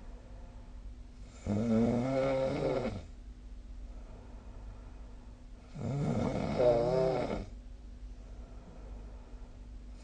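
A person snoring in sleep: two drawn-out snores, each about a second and a half long and about four seconds apart, the second slightly louder.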